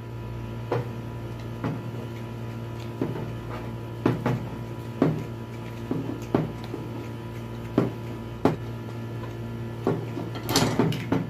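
Light clicks and taps of hands handling copper heater elements and a roll of PTFE tape while wrapping the tape onto the elements' threaded fittings, every second or so over a steady low hum. A louder cluster of taps and rustling comes near the end.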